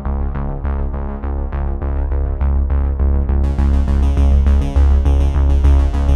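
Electronic background music: synthesizer over a steady pulsing bass beat, with a brighter high layer joining about halfway through.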